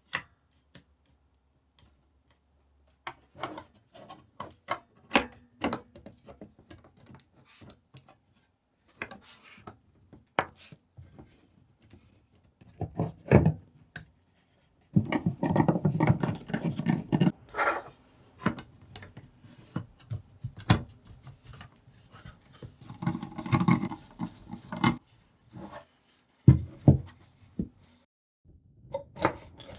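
Computer parts being handled and fitted during a mini-ITX PC build: scattered sharp clicks and taps of plastic and metal, with denser bursts of rubbing and handling about halfway through and again a few seconds later.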